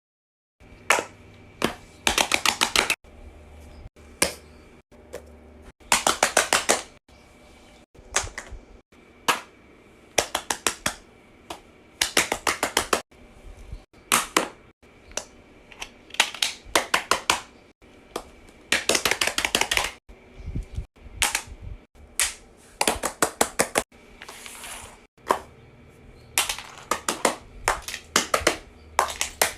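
Fidget toys being pressed and popped: quick runs of many sharp clicks, each run lasting up to about a second, starting and stopping again every second or two.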